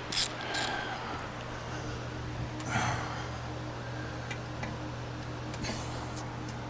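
Hand-tool work on a car: a few light metallic clicks over a steady low hum, with one breathy exhale about three seconds in.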